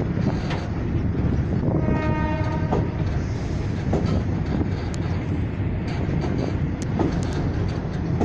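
Passenger train running along the line, heard from inside a carriage at an open window: a steady rolling rumble with occasional sharp rail-joint clicks. A horn sounds once for about a second, about two seconds in.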